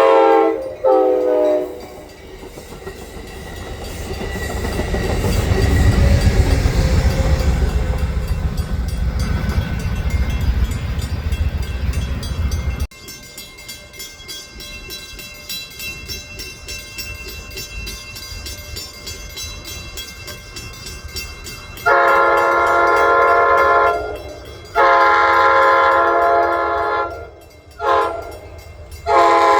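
A train horn's multi-tone chord ends a blast just after the start, then a passing train rumbles, loudest around six seconds in. After an abrupt change to a quieter scene, a train horn sounds two long blasts, a short one and a long one, the grade-crossing pattern.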